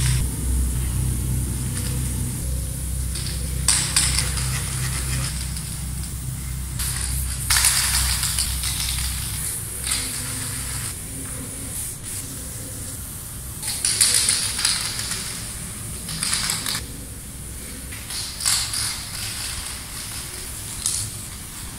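Aerosol spray paint can hissing in short bursts of one to two seconds, several seconds apart, as background colour is sprayed on a wall. A low rumble runs under the first half.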